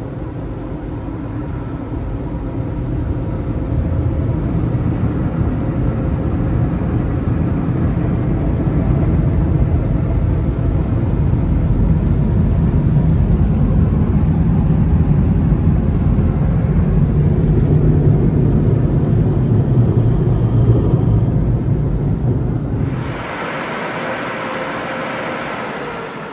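The air dryer blowers of a D&S IQ 2.0 touchless in-bay car wash running, a loud steady rush of air that builds over the first few seconds. About three seconds before the end the deep rumble cuts out, leaving a higher hiss.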